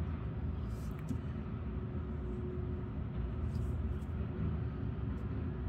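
Steady low background rumble with a few faint, brief scratchy ticks about a second in and again about three and a half seconds in.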